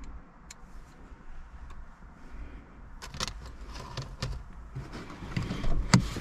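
Small clicks and rattles of tools and cable connectors being handled and set down, then the car's driver's door latch clicking open sharply near the end, the loudest sound.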